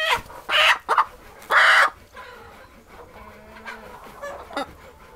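Chickens squawking and clucking while a layer pullet is held for a thigh-muscle vaccine injection. Two loud squawks come in the first two seconds, followed by quieter clucking.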